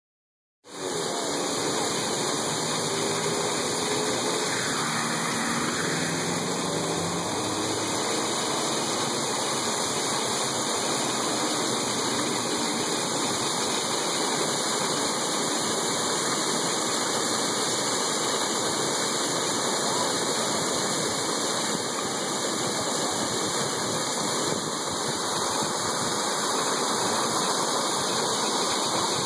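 Fountain water jets splashing steadily, heard close to a tall central column and the arcing jets falling around it.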